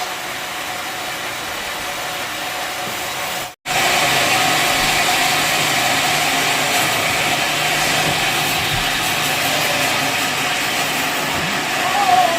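Sawmill machinery running steadily, a mechanical hum with a held tone. It cuts out for an instant about three and a half seconds in and comes back louder.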